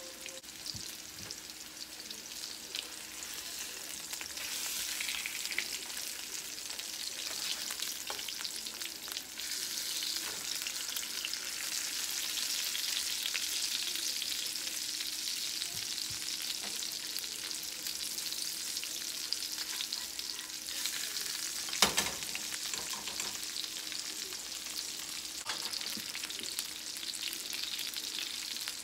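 Steelhead trout fillets sizzling in hot oil in nonstick frying pans, the sizzle growing a little louder a few seconds in, with a spatula working the fish and one sharp knock about three quarters of the way through.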